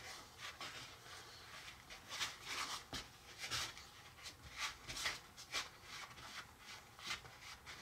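Soft, irregular swishing and rubbing of Easy Bake chocolate brownie dough being pressed hard and worked, about two or three faint strokes a second.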